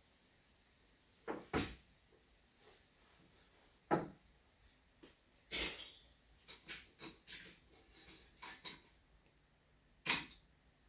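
Scattered knocks and taps of plaster molds and clay being handled on a work surface: a pair of knocks early, a sharp knock, a longer noisier handling sound, a run of small light taps, and another knock near the end.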